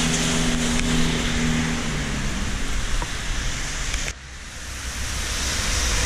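Gusty wind buffeting the microphone: a loud, even rush of noise with a low steady hum under it for the first two seconds. The rush drops suddenly about four seconds in, then builds again.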